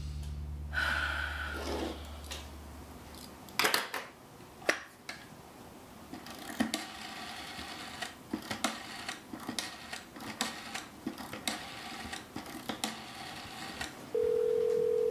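Orange rotary-dial telephone being dialled: the dial clicks and rattles as it is wound round and runs back, digit after digit. Near the end a single steady ringing tone, about a second long, sounds on the line as the call goes through.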